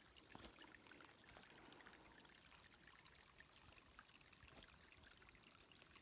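Near silence with the faint steady trickle of a small rocky forest brook, and a few faint clicks.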